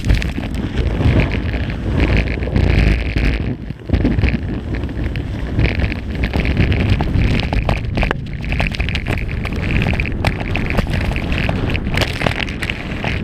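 Skis scraping and carving over packed snow at high speed, with wind buffeting the microphone. A steady rasping hiss and low rumble run throughout, broken by many short clicks and a brief drop near four seconds.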